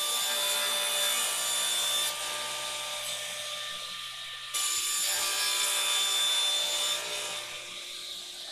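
Table saw cutting old fence boards, the spinning blade giving a steady whine. It is louder while the blade is in the wood, from the start to about two seconds in and again from about four and a half to seven seconds, and quieter in between.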